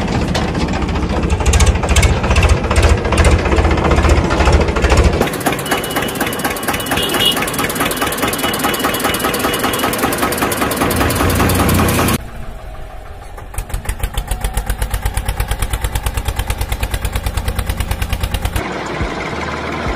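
Tractor engine chugging in a steady, pulsing rhythm, the engine sound changing abruptly three times as different recordings follow one another.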